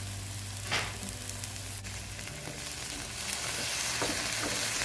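Chopped eggplant and tomato sizzling in hot olive oil in a nonstick frying pan, with a spatula stirring and scraping now and then.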